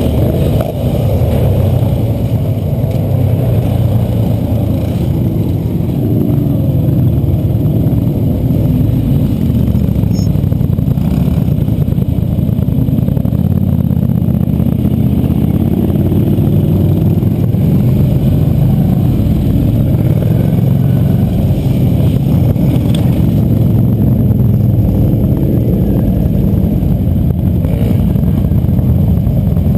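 A line of quad bikes (ATVs) riding slowly past one after another, their engines running steadily and the pitch rising and falling as each quad goes by.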